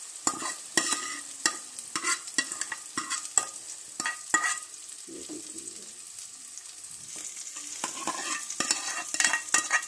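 A steel ladle scraping and knocking against a metal kadhai as a hot tomato-onion tadka is spooned into a pot of sambar, over a steady sizzle of hot oil. The scrapes come thick in the first few seconds, ease off in the middle and pick up again near the end.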